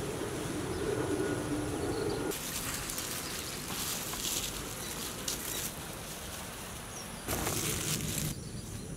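Steady outdoor background noise with a low drone that stops about two seconds in, then a few short rustles; the longest, about a second, comes near the end.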